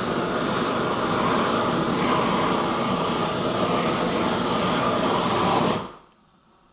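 Gas torch flame running with a steady rushing hiss as it preheats the cast-iron differential housing of a Dana 60 axle before nickel-rod welding. The hiss cuts off sharply near the end, as the flame is turned down.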